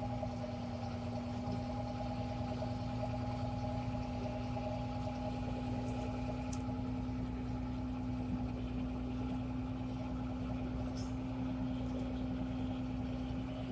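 Vehicle engine running at a steady, unchanging speed, heard from inside the cab as a constant hum.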